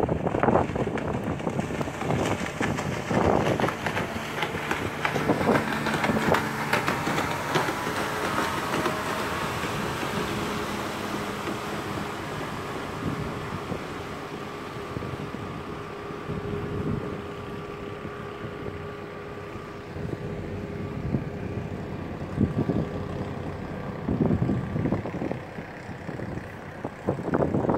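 A boat's engine running steadily, with rushing water and wind on the microphone.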